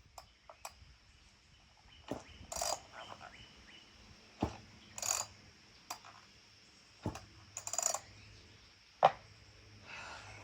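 Scattered clicks and knocks with a few short scraping rustles, as of hands handling a chainsaw; no engine is running.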